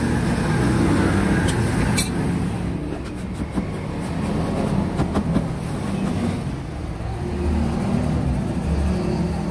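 Steady low engine rumble of a vehicle or machine running nearby, with a few light clicks and scrapes.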